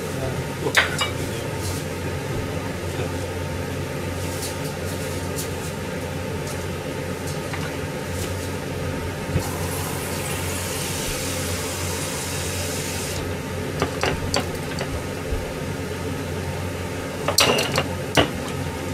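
Steady low hum of a kitchen with pots on a gas stove, broken by scattered clinks of pots and utensils; a hiss runs for about four seconds midway.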